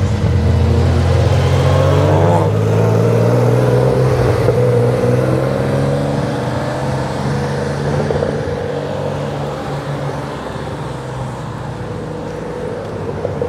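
Car engine and exhaust running at low, steady revs while driving slowly, with a brief rising rev about two seconds in. It gets gradually quieter over the second half.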